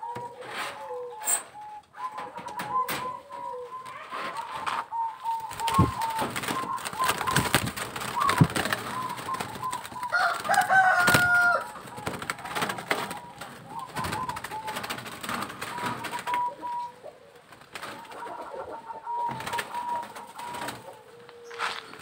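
Zebra doves (perkutut) cooing, many short, clear, repeated coos overlapping, with knocks and rustling in the middle stretch and a longer, louder call about ten seconds in.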